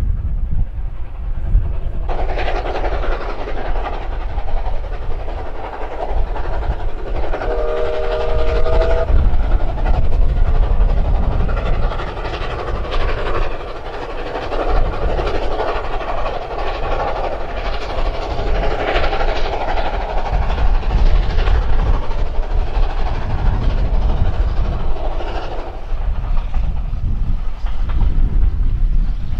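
A steam locomotive working a train past, a continuous rumble and rolling noise that swells a couple of seconds in and fades near the end. A short whistle chord of three notes sounds about a quarter of the way through.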